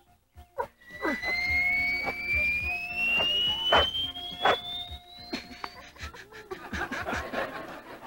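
Comic music cue: a whistle-like tone glides slowly and steadily upward for about five seconds over a steady lower note, punctuated by several sharp percussive hits. It then gives way to busier background music.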